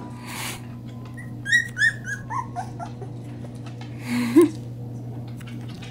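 Springer spaniel puppies whimpering: a run of short, high squeaks, falling in pitch, about one and a half to two and a half seconds in, then a short, lower yelp about four seconds in, the loudest sound.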